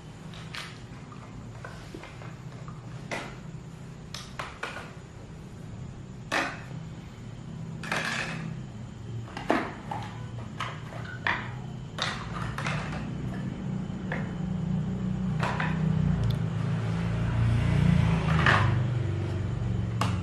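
Scattered clicks and knocks of plastic toy groceries and a toy cash register being handled. A low hum builds in the last few seconds.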